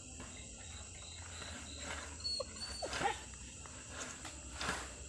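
Night insects chirring steadily, with a few brief whining calls from an animal about two to three seconds in.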